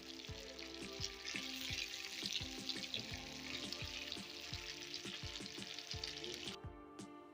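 Food frying in a pan of hot oil: a steady sizzle that cuts off abruptly near the end, over background music with a steady beat.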